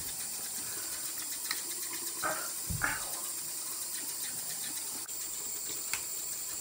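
Bathroom sink tap running in a steady stream, with a few faint small knocks over it.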